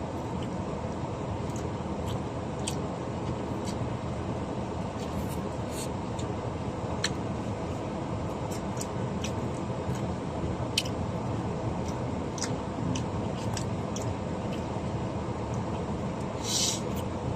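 Steady low rumble inside a minivan's cabin, with scattered light clicks and a brief rustle near the end.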